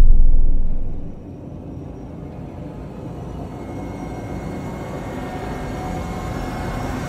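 Logo-animation sound design: a heavy low hit fades out over the first second, then a low rumbling drone with faint high sustained tones slowly swells.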